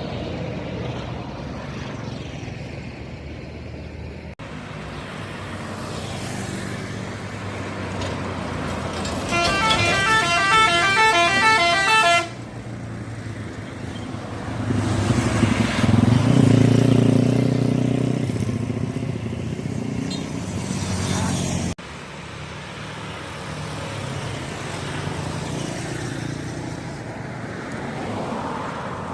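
A bus's multi-tone musical "telolet" horn plays a quick stepping tune for about three seconds. A few seconds later a bus engine rumbles loudly as it passes, over steady road traffic.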